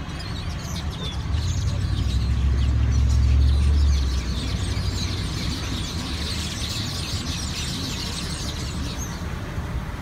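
A large flock of small birds on overhead wires and in flight chirping together: a dense chatter of many short high calls that thickens in the second half. A low traffic rumble runs underneath, loudest between about one and four seconds in.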